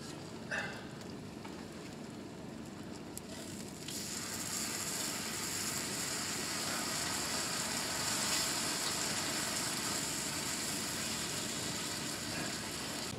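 Meat slices sizzling on the griddle plate of a portable gas grill, a steady high hiss that grows louder about four seconds in.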